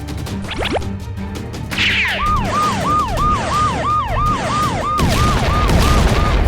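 Cartoon police car siren going fast, about three rising-and-falling cycles a second, starting about two seconds in over background music. A couple of quick whooshes come before it, and a louder rushing noise joins it for the last second and a half.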